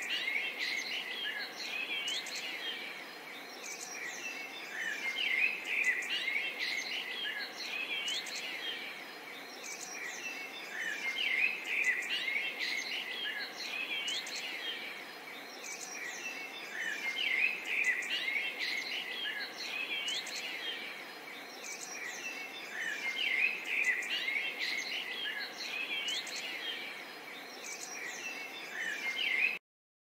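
A chorus of small birds chirping and twittering, with many quick high calls overlapping. It swells and fades every few seconds and cuts off abruptly near the end.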